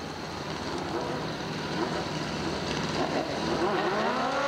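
Harley-Davidson drag bike engines running on the starting line over a steady hiss, with a rev that rises and eases off near the end.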